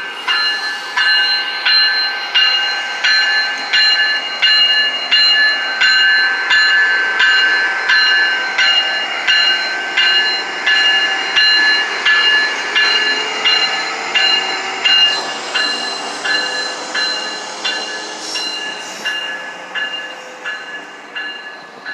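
Union Pacific diesel locomotives rolling slowly past with a low rumble, while a warning bell clangs steadily about one and a half times a second. The bell grows fainter over the last few seconds.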